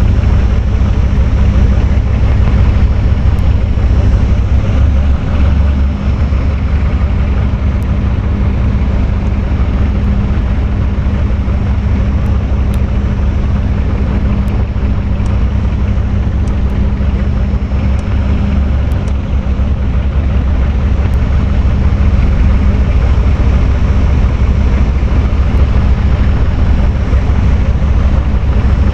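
Electric fan running steadily: a loud low rush of moving air with a steady motor hum underneath.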